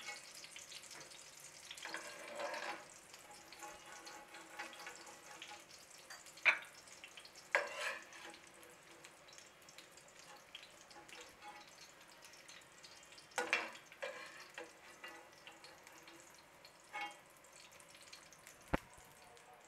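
Breaded potato slices sizzling quietly in shallow oil in a steel pan. A slotted metal spoon scrapes and clinks against the pan now and then as slices are lifted out, with a sharp click near the end.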